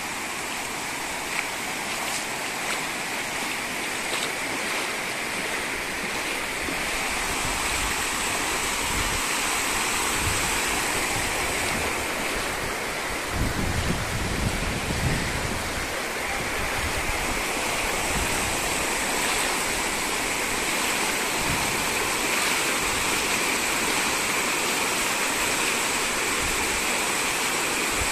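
Floodwater from an overflowing lake rushing steadily across a road and through flooded scrub: a continuous hiss of running water, with a few low gusts partway through.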